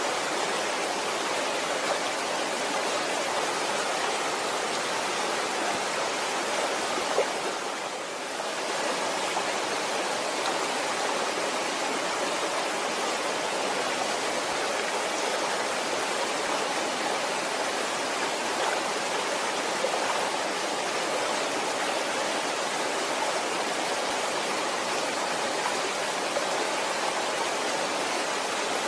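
Waterfall: a steady rush of falling water, with a brief dip in level about eight seconds in.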